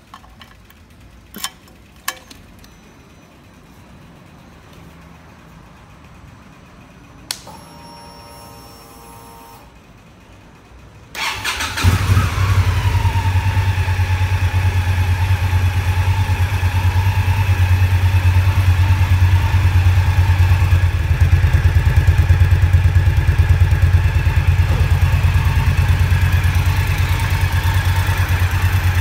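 Indian Scout Sixty's liquid-cooled V-twin being started: a few key clicks and a brief electric whir, then about eleven seconds in it cranks, catches at once and settles from a slightly higher pitch into a steady idle.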